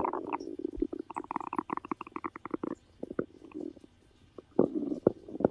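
Stomach growling: a gurgling rumble in rapid little pulses, running quickly for a couple of seconds, then pausing, with a louder rumble near the end.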